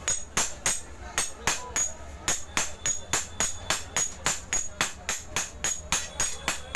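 Sledgehammer and hand hammer striking a red-hot spear blade on an anvil in hand forging: a fast, even run of metallic clanks, about four or five a second, each with a short high ring.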